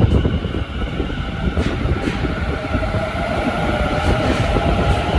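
Tobu 50050-series electric train pulling out of a subway platform and picking up speed: a steady rumble of wheels on rail, with a traction-motor whine coming in about halfway through.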